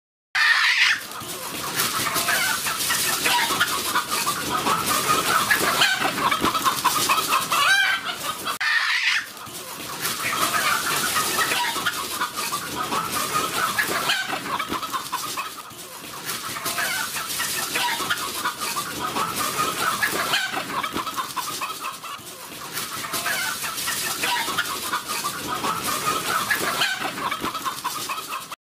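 A flock of chickens, roosters and a hen, clucking continuously, with a short break about nine seconds in.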